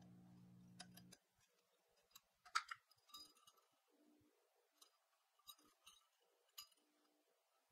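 Faint, irregular metallic clicks and ticks of thin wire and needle-nose pliers against a small sheet-metal bracket as the wire is bent around a pin, with one louder click a couple of seconds in.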